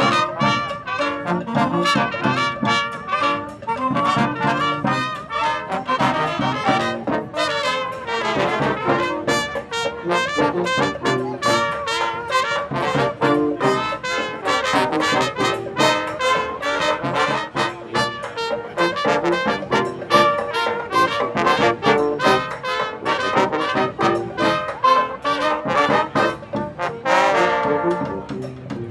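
Street brass band playing, with trombones and trumpets over a steady beat.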